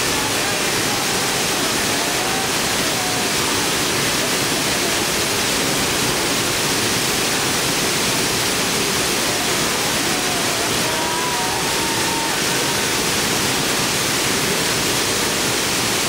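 A large waterfall: a steady, loud rush of falling water crashing onto rock.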